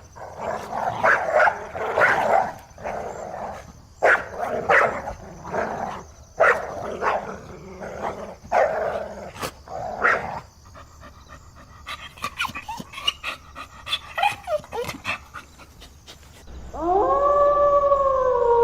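Dogs barking over and over for about the first half. Past the middle come a few thin whines that fall in pitch, and near the end a long howl begins, rising at first and then held.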